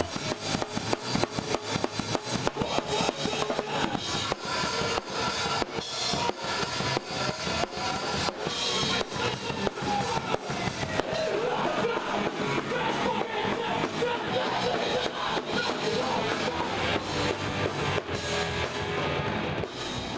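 A band playing rock-style music with a drum kit, many fast drum hits over amplified instruments. It fades out at the very end.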